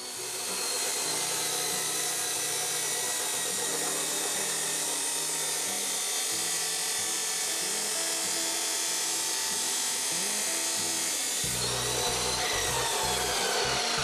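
Abrasive chop saw's cut-off wheel grinding steadily through 1/8-inch steel flat bar. About twelve seconds in, the cut ends and the motor winds down, its whine falling in pitch.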